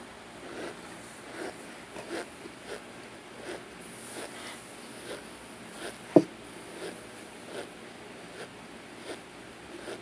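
Close-up chewing of crumbly, chalky chunks: short crunches come about every second or less, with one sharp, loud crack about six seconds in.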